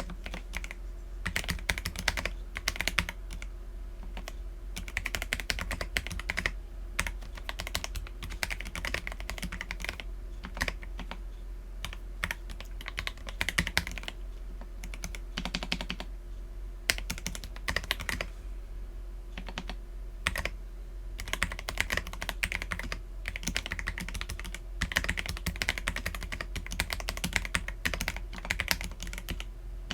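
Typing on an Akko PC75B mechanical keyboard with lubed Akko Jelly Black linear switches and Cherry-profile PBT keycaps: fast runs of keystrokes broken by short pauses, the longest about two-thirds of the way in.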